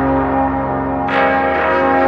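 Background music made of slow, ringing bell-like tones held over each other, with a new chord struck about a second in.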